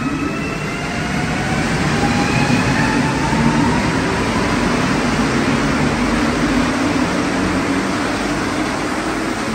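Montreal Metro rubber-tyred train pulling out of the station. Its electric motors whine, several tones rising in pitch over the first few seconds as it picks up speed, over a steady rumble that slowly fades as the cars pass.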